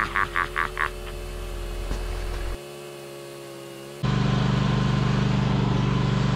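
A quieter steady hum with a few quick rhythmic pulses in the first second, then, at a cut about four seconds in, a snowblower's engine running loud and steady as it throws snow.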